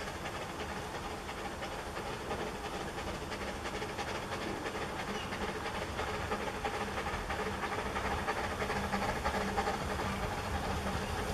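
Narrow-gauge steam locomotive approaching with its train, its exhaust hissing and puffing over the running of the wheels, growing steadily louder as it draws near.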